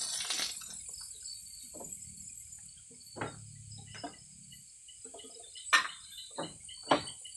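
A steady high-pitched chorus of night insects with rows of fast repeating chirps, under scattered knocks and clatter of gear being handled on a wooden plank floor; two sharp clicks near the end are the loudest sounds.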